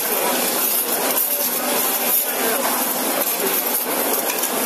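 Metal spatula scraping and pushing food across a hot flat-top griddle in irregular strokes, over steady sizzling.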